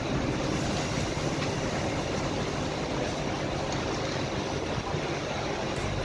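Coach-type bus engine idling at a stop, a steady low rumble under outdoor noise while passengers board.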